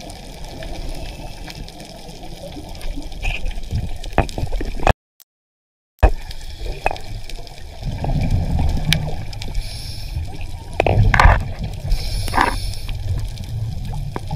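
Muffled underwater sound with gurgling bubble bursts from scuba divers breathing, and scattered clicks. The sound cuts out completely for about a second near the middle.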